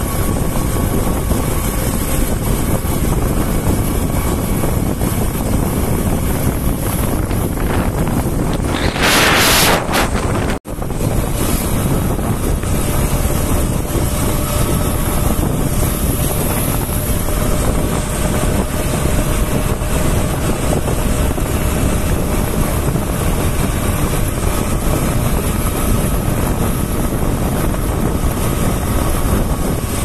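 Wind buffeting the microphone of a moving motorcycle, with the engine running faintly underneath. About nine seconds in, a louder rush of wind lasts about a second, followed by a brief dropout.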